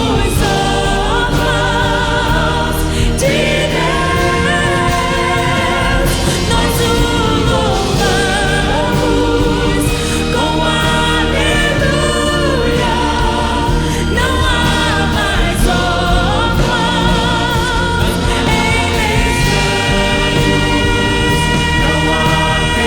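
Choir singing a gospel song with vibrato over a steady instrumental accompaniment.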